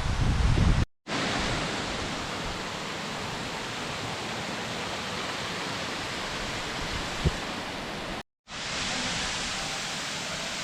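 Waterfall rushing: a steady, even hiss of falling water, broken by two abrupt cuts, about a second in and about eight seconds in. A low wind rumble on the microphone comes before the first cut.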